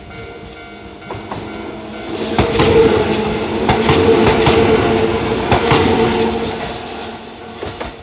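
A Kintetsu 22000 series limited express electric train passing close by at speed. Its wheels clack over the rail joints in quick pairs under a steady running hum. The sound swells about two seconds in and fades toward the end.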